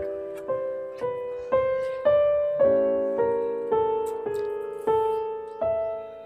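Background music: a gentle piano melody of single struck notes, one about every half second, each ringing and fading before the next.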